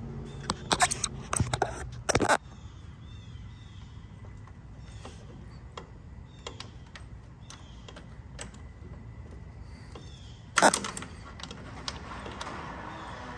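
Metal clicks and clatter from handling the fuel-line banjo fittings and copper washers on a diesel injection pump. There is a dense run of clicks in the first two seconds or so, a few faint ticks after that, and another short burst of clatter about ten and a half seconds in.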